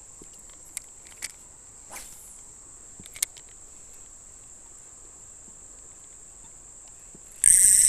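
Insects trilling steadily and high-pitched along the creek, with a few faint clicks. Near the end a much louder, pulsing insect buzz starts suddenly.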